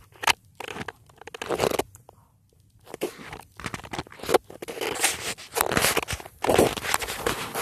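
Handling noise: the phone's microphone rubbing and scraping against fabric in irregular bursts as the phone is moved about, with a short lull about two seconds in and then near-continuous rubbing.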